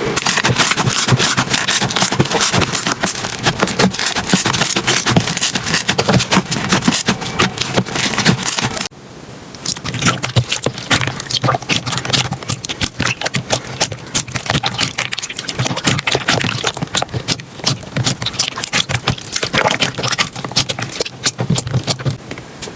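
Slime being squeezed and pressed by hand, giving a dense run of sharp crackling and popping clicks. It breaks off suddenly about nine seconds in, then the crackling starts again.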